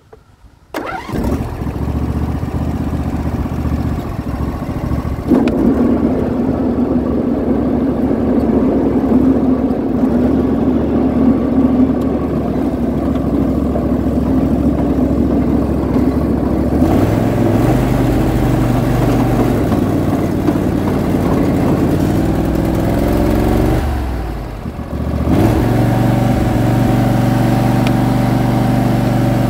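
Poulan Pro riding lawn tractor engine running under way on a test cut. The sound starts about a second in, grows louder and fuller about five seconds in, changes pitch around the middle, and dips briefly near the end before picking back up. The deck does not cut, which the owner puts down to a problem with the deck.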